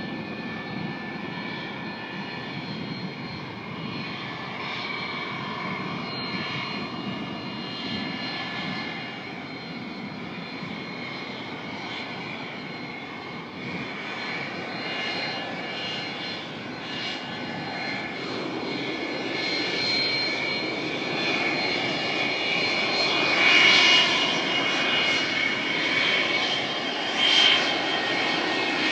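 The two rear-mounted Pratt & Whitney JT8D turbofans of a McDonnell Douglas MD-83 freighter run at taxi power: a steady jet whine with several high tones over a rumble. It grows louder over the last third, with two brief swells near the end.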